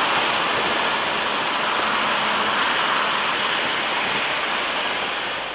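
Steady rushing road and engine noise of a van driving, heard from inside the cab, fading a little near the end.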